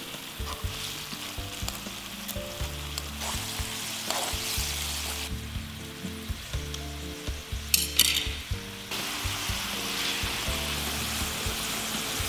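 Spiced broth simmering around fried tilapia in a nonstick wok: a steady sizzling, bubbling hiss. Soft background music with shifting low notes runs underneath, and a few sharp clicks stand out about eight seconds in.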